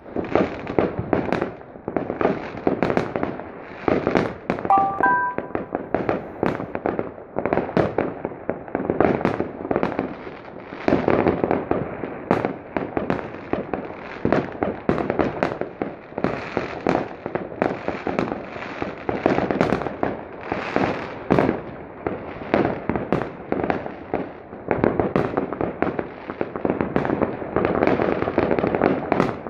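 Many fireworks and firecrackers going off at once: a dense, unbroken run of overlapping bangs and crackles, with no pause.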